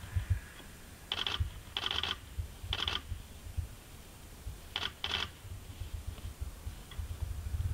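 A Canon camera's own mechanical noise picked up by its microphone: five short buzzing bursts, three spaced about a second apart, then a pause and two close together, over irregular low thumps.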